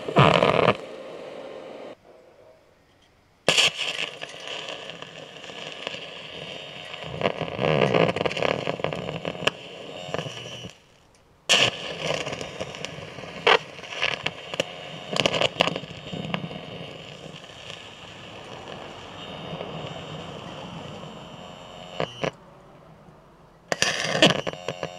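Carbon arc from a graphite gouging rod on a welder, run on negative polarity, crackling and hissing with sharp pops as it melts rock. The sound cuts out and starts again three times.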